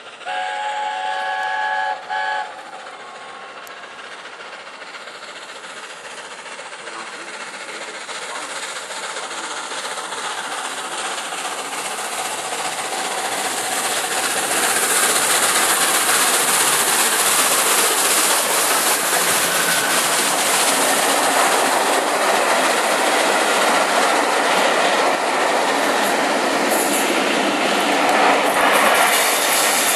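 A chord-like whistle sounds for nearly two seconds, then a short second blast, most likely the three-chime whistle of LNER A4 4464 Bittern. Then the rumble and wheel clatter of the steam locomotive and its coaches grows steadily as the train runs through the station, loud from about halfway on.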